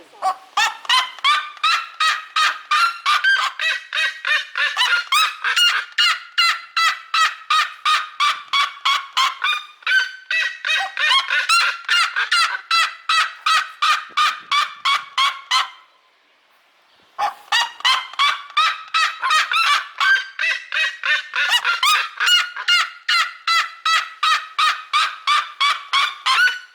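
Seriema calling: a long, rapid series of loud yelping notes, several a second, that breaks off briefly about two-thirds through and then starts up again.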